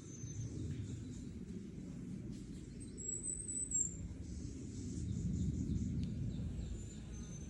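Outdoor ambience: a steady low rumble with thin, high chirping calls, the brightest a wavering call lasting about a second, three seconds in.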